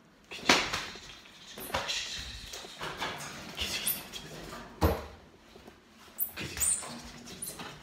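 Irregular knocks, thumps and rustles of a squirrel monkey jumping about and landing on furniture, the loudest thump about five seconds in.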